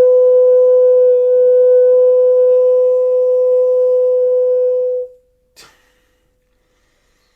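A man's voice holding one steady, breathy sung tone, which stops about five seconds in; a faint click follows.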